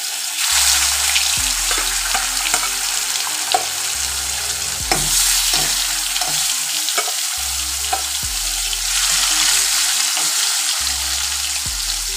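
Marinated pieces of borali fish sizzling steadily in hot mustard oil in a wok, with a spatula clicking and scraping against the pan as pieces are put in and turned.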